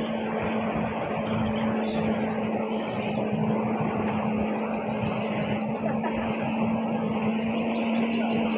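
Speedboat engine running steadily at low cruising speed, an even drone with one held note, over the rush of water along the hull.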